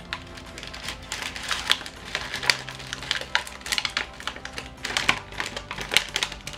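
Chocolate-coated cookie snack being chewed close to the microphone: an irregular run of crisp crunches and clicks.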